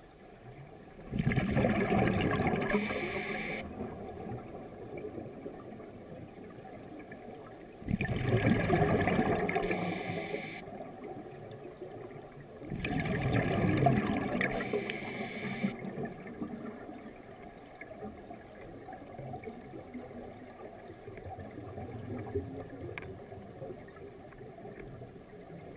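Scuba diver's exhaled breath bubbling out of the regulator, heard underwater: three bubbling bursts a few seconds long, about five to seven seconds apart, in the first sixteen seconds, then only a fainter steady water murmur.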